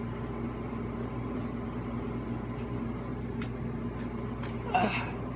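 Steady low mechanical hum of a running appliance or fan, with a few faint clicks. A short, higher pitched sound comes near the end.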